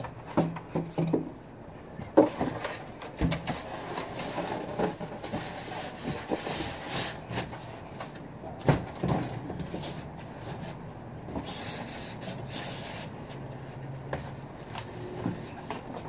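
Styrofoam packing insert and cardboard crate being handled: scattered knocks with foam and cardboard rubbing and scraping, and a couple of sharper knocks.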